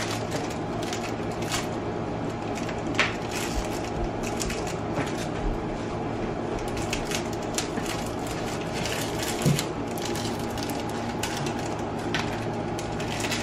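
Crinkling and crackling of a clear plastic bag around a recorder as it is picked and pulled at by hand, with scattered sharp clicks, a few louder ones, over a steady background hum.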